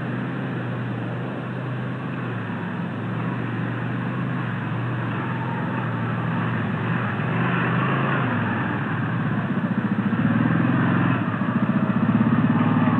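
A motor vehicle's engine running, growing gradually louder as it comes closer.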